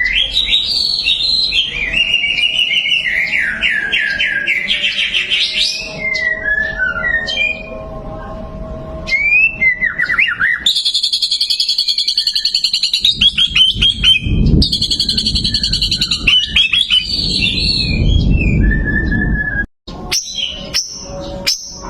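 White-rumped shama (murai batu) singing loudly: a varied run of whistled phrases and fast trills, with a long rapid trill in the middle. Low rumbling noise runs under the second half, and the sound cuts out briefly near the end.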